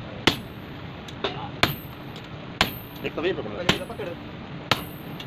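Sledgehammer blows on a handled top tool (set hammer or hot chisel) held on steel over an anvil: five sharp strikes about a second apart, each with a high metallic ring.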